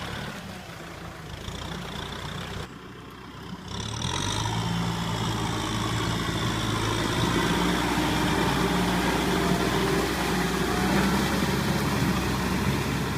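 Kubota M6040 SU tractor's diesel engine running steadily. It drops away briefly about three seconds in, then runs on louder.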